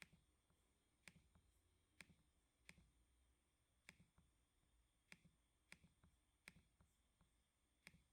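Faint, slow clicking at a computer: sharp single clicks of keys or a mouse button, about one a second and unevenly spaced.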